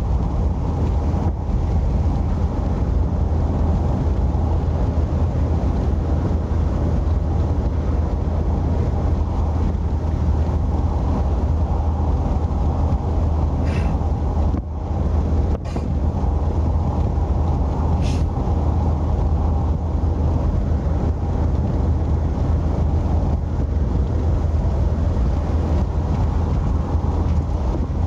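Steady road and wind noise of a car driving, heard from inside the cabin, with a deep low drone underneath. A few faint brief clicks come around the middle.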